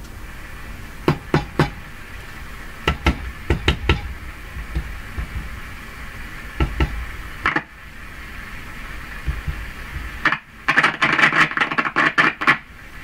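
Sharp pops and crackles of static from a vacuum-tube radio (Philco 48-1826) as one of its tubes is touched, ending in a dense burst of crackling near the end. The tube is noisy, which the owner suspects may mean a loose connection under the chassis.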